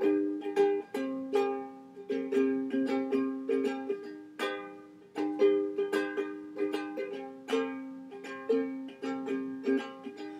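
Ukulele strummed in a steady rhythm of chords, an instrumental break between sung lines, with the chord changing every few seconds.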